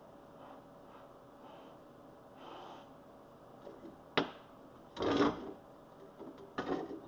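Faint steady background, then a sharp knock about four seconds in, a short scraping burst a second later, and a few lighter knocks near the end.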